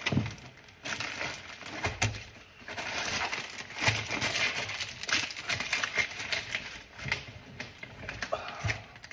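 Groceries being unpacked from a canvas shopping bag: irregular rustling and crinkling of the bag and packaging, with scattered knocks and thuds as cartons and other items are set down on the counter.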